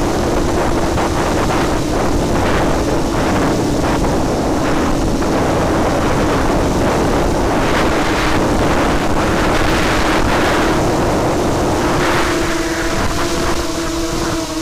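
FPV quadcopter's motors and propellers buzzing at a nearly steady pitch, picked up by the onboard camera, under heavy wind rush on its microphone. Near the end the buzz gains a cluster of higher tones.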